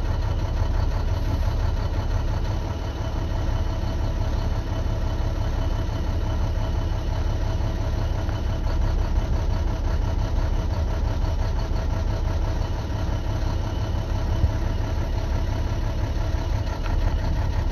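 2012 MaxxForce DT inline-six diesel idling steadily while injectors are switched off one at a time in a cylinder cutout test. The running sound shows little audible change.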